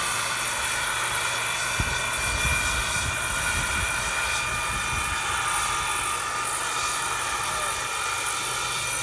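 Turbine-powered radio-controlled model helicopter, a scale Airbus EC135, flying with a steady high turbine whine over its rotor noise.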